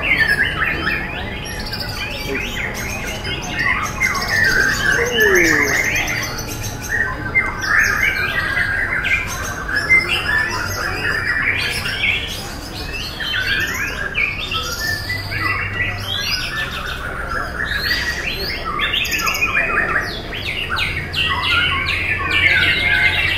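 White-rumped shamas (murai batu) singing in competition: a dense, unbroken jumble of varied whistles, trills and chirps, several birds overlapping.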